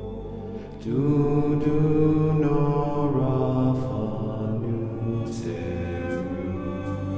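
Background music: a chant-like sung voice over held notes, growing louder about a second in.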